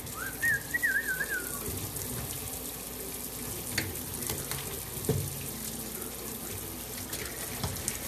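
Kitchen faucet running steadily into a stainless steel sink while a small parrot bathes and splashes under the stream, with a few light knocks. A short warbling whistle sounds just after the start.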